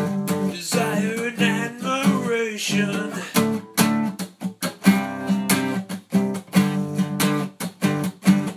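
Luna Celtic Horse acoustic guitar strummed in a steady rhythm, with a wavering wordless vocal line over it about one to three seconds in.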